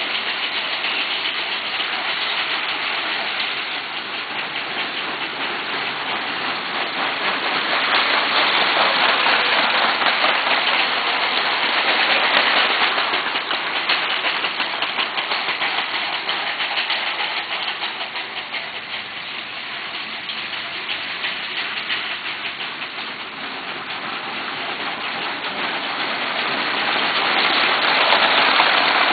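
Lego 12-volt trains running on plastic track: a dense, steady clatter of wheels on the rails, swelling louder as a train passes close by about a third of the way in and again near the end.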